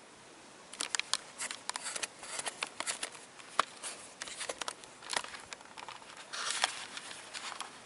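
Handling noise from the hand-held recording camera: a run of irregular sharp clicks, knocks and rubs as it is swung around and zoomed, starting about a second in, with a short rustle near the end.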